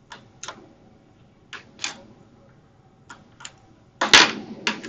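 Scattered sharp clicks and taps, mostly in close pairs about a second apart, with a louder clatter about four seconds in.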